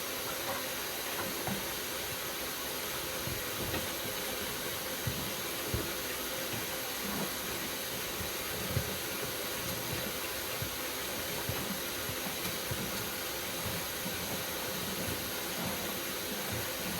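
Flexshaft drain-cleaning cable spun by a cordless hammer drill inside a sewer line: a steady hissing whir with scattered low knocks of the chain in the pipe.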